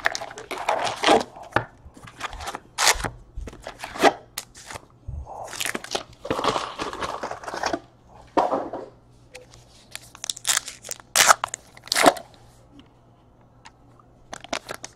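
Packs of Topps Allen & Ginter baseball cards and their cardboard hobby box being handled. The wrappers crinkle and rustle in short irregular bursts as the packs are taken out and set down, and a pack wrapper is torn open near the end.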